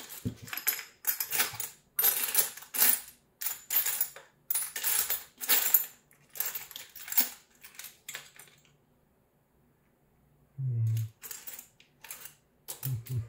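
Metal hand tools clinking and rattling as screwdrivers are rummaged through, a dense run of sharp clatters that stops about two-thirds of the way through.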